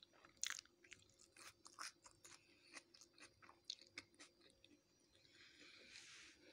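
Close-up chewing of a mouthful of food: a run of faint, irregular crunches and mouth clicks. About six seconds in there is a brief soft rustle.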